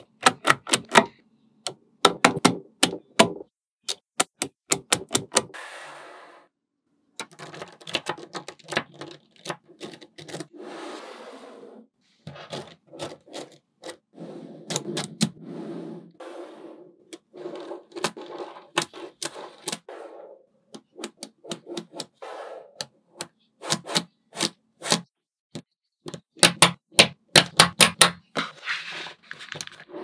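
Small magnetic balls clicking as they snap onto one another, in quick runs of sharp clicks, with stretches of dense rattling as rows and sheets of balls are handled and slide against each other.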